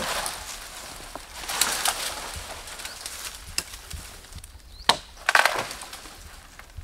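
Wood being chopped and splintering, as a lead tree (Leucaena) pole is hacked down: a few sharp, spaced-out chops, with a quick cluster of cracks about five seconds in.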